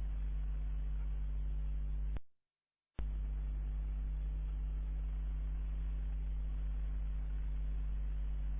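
Faulty CCTV microphone putting out a steady low-frequency hum with a few higher tones stacked over it and a hiss behind. About two seconds in it cuts out to dead silence for under a second, then comes straight back unchanged.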